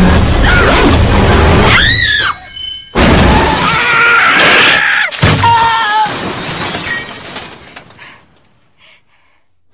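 Horror-film sound of a violent struggle inside a car: loud crashing and glass shattering mixed with screams and tense music. Sudden hits land about three and five seconds in, each followed by shrill wavering cries, and the noise fades out near the end.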